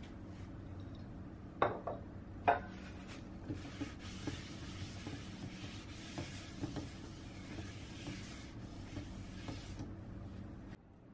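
Paper towel rubbed around the inside of a nonstick frying pan to spread cooking oil: a steady, scratchy rubbing with small taps that lasts several seconds and stops near the end. Two sharp knocks come a second apart, about two seconds in.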